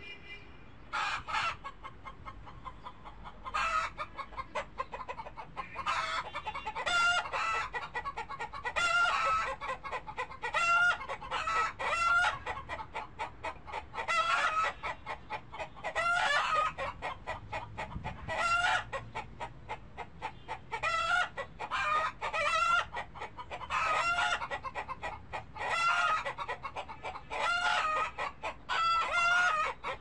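Chickens clucking: many short pitched calls, one every second or so, beginning about a second in.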